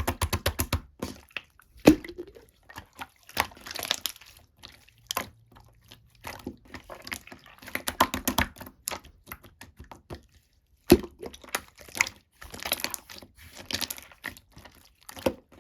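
Slime being squeezed and worked by hand: a continual run of sticky clicks, crackles and pops of trapped air. It opens with a quick string of clicks, with sharp single pops about two seconds in and again near eleven seconds.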